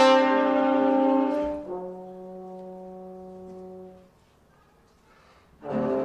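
Trombones holding long, low sustained notes: a loud chord that dies away about a second and a half in, a softer held note until about four seconds in, a brief near-silent pause, then a loud chord coming back in near the end.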